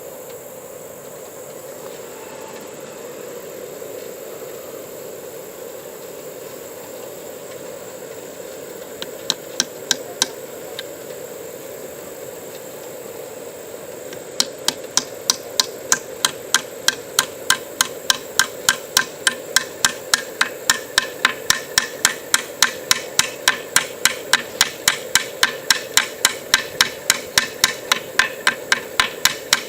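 A 3D-printed plastic hammer striking a roofing nail into wood. A few taps come about nine seconds in, then steady, rapid strikes at about three a second from about fourteen seconds on. The hammer is so light that it takes a lot of force.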